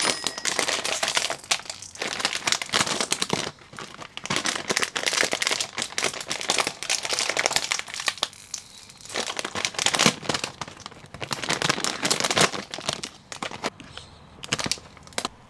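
Crinkly snack-chip bag being handled and torn open: loud, irregular crinkling in bursts, with a few short pauses.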